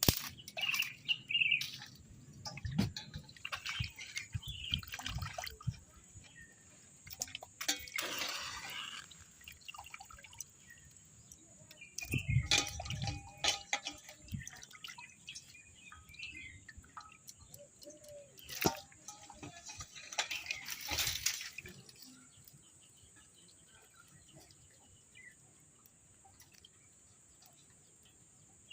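Water splashing and dripping in irregular bursts, with a few sharp knocks, then quieter in the last several seconds. Birds chirp briefly.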